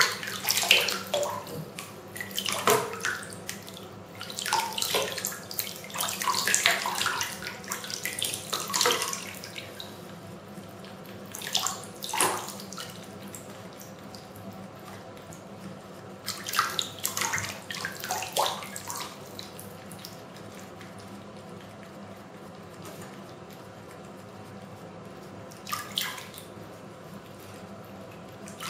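Water running from a tap in a steady stream, broken by irregular louder spells of splashing.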